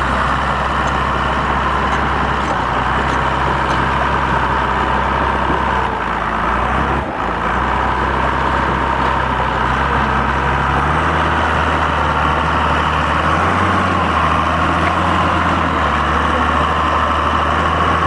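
Crawler bulldozer's diesel engine running steadily, with a brief drop about seven seconds in and a shift in the low drone from about eleven seconds in.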